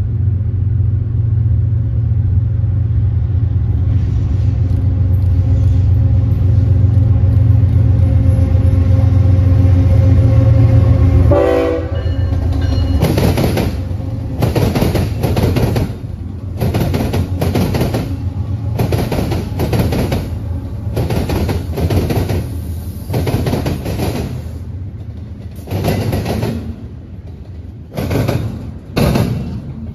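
BNSF intermodal freight train passing close by. The diesel locomotives' engines drone loudly as they approach and go by, and then the double-stack container cars follow with a rhythmic clickety-clack of wheels over the rail joints that slowly fades.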